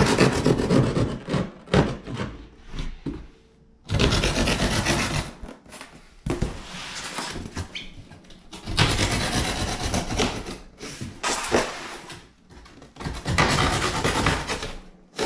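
Long knife sawing through the corrugated cardboard of a shipping box, in about five long scraping cuts with short pauses between. The cuts go down the corners of the outer box so that its oversized sides can be folded in.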